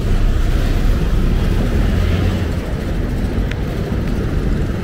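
City street traffic noise: a steady low rumble of passing vehicles with no distinct event standing out.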